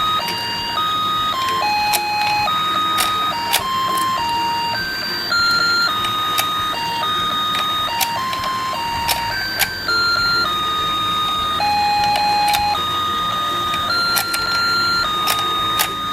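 Battery-operated toy fishing game playing its tinny electronic beeping melody while the pond turns, one pure note at a time, with scattered sharp plastic clicks.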